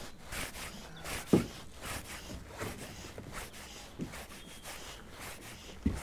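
Fly line being stripped in by hand through the rod guides, a short scrape with each pull, repeated every half second to a second. A louder knock comes about a second and a half in.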